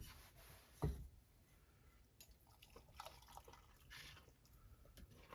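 Near silence, with one soft thump about a second in and scattered faint clicks and taps after it.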